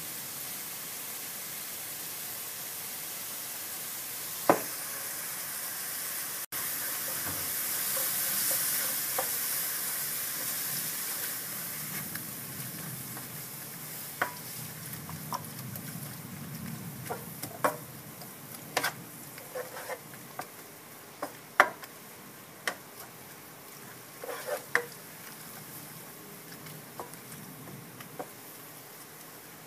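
Green vegetables sizzling as they are stir-fried in a nonstick wok-pan. The sizzle grows louder a few seconds in, then eases. A sharp knock comes early, and from about halfway a wooden spatula scrapes and taps against the pan again and again as the greens are tossed.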